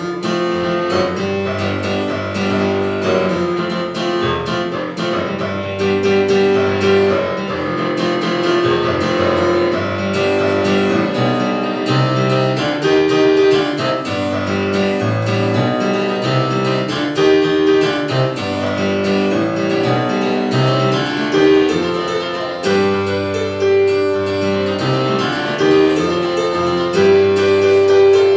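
Solo keyboard music played on a Yamaha MM8 with a piano sound: a middle-register note keeps coming back over bass notes that change every second or so.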